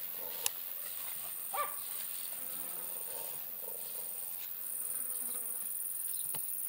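Insects in tall summer grass making a steady, high continuous buzz. A sharp click comes about half a second in, and a short chirp about a second later.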